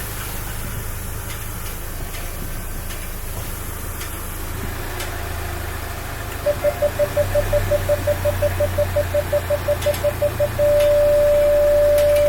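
Kia Tasman X-Pro pickup with its brakes working in X-Trek mode, giving a steady low hum, the odd brake noise the owner is querying. About six seconds in, an electronic warning beep starts pulsing about five times a second. It turns into one continuous tone near the end, louder than the hum.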